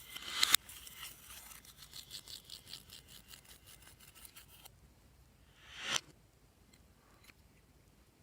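Glossy slime being squished and mixed by hand: a run of soft wet squelches, about four a second, then one longer swelling squish that cuts off sharply about six seconds in.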